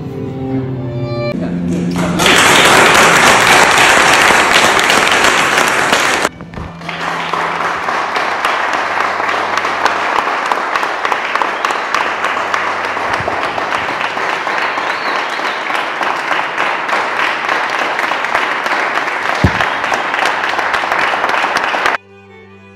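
Guests applauding, with soft music underneath. The clapping starts about two seconds in, dips briefly, carries on, and stops abruptly near the end, leaving only the music.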